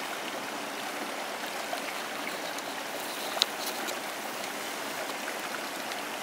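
Shallow creek water flowing steadily over rocks, with a single sharp click about halfway through.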